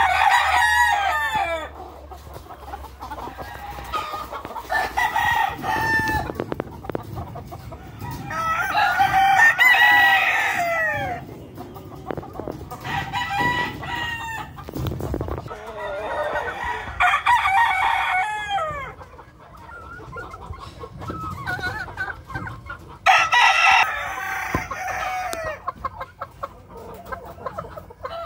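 Gamecock roosters crowing in turn, about eight loud crows a few seconds apart, each one or two seconds long and falling in pitch at the end.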